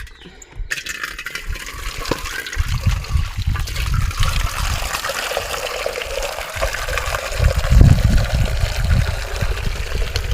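Water pouring steadily into a cooking pot, starting about a second in, with heavy low rumbles twice, the louder one near the end.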